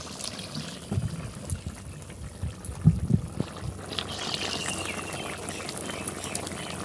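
Fish-and-greens curry boiling hard in a metal kadai, bubbling steadily. A few low plops about one and three seconds in as fried fish pieces are dropped into the boiling gravy.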